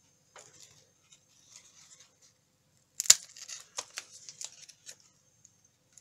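A Molinos del Bosque chocolate puffed rice cake being snapped by hand: light crackling, then one sharp crack about three seconds in, followed by a brief run of crumbly crackles as it breaks apart.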